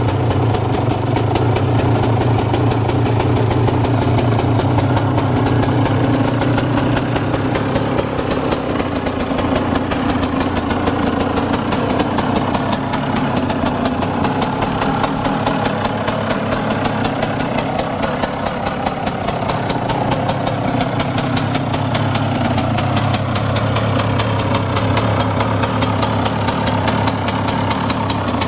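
KTM 125 SX two-stroke single-cylinder engine idling steadily as it warms up after a cold start, with a fast, even pulse from the exhaust.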